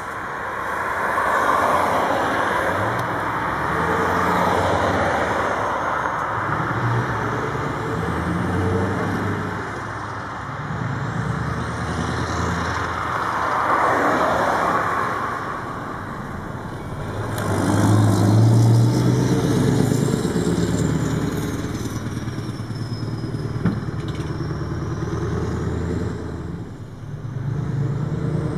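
Scania R500's V8 diesel engine pulling a truck-and-trailer combination, its note climbing and dropping back in steps as it works up through the gears. Passing cars add swells of tyre noise a few times.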